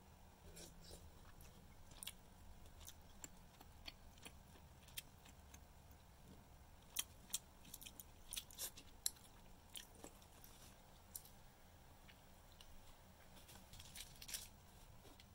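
Small, scattered clicks and crunches of eating close to the microphone: chewing, and a plastic spoon scraping rice on brown wrapping paper, busiest about halfway through. A short patch of plastic crinkling near the end comes as a chilli sauce packet is handled.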